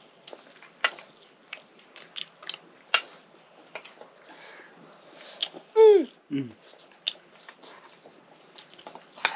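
Scattered short clicks and wet smacks of someone chewing and eating. About six seconds in, a loud short cry falls sharply in pitch, followed at once by a second, lower one.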